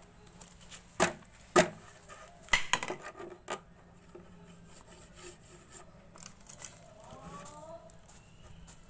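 Bamboo peelings being swept and brushed off a painted surface: soft rubbing and scraping, with four sharp knocks in the first few seconds.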